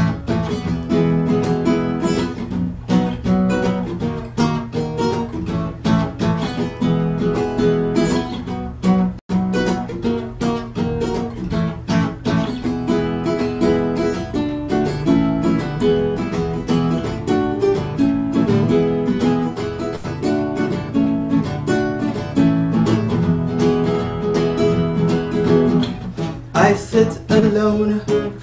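Solo acoustic guitar playing an instrumental passage of a song, with a steady run of picked chords and notes. The sound cuts out for an instant about nine seconds in. A man's singing voice comes back in near the end.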